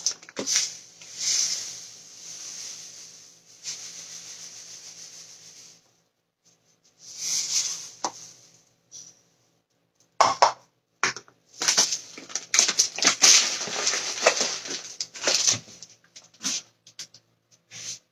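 A paper bag crinkling while dry grains are poured from it into a plastic measuring cup and tipped into a small pot: rustling and pouring hiss with small knocks, in spells with short pauses.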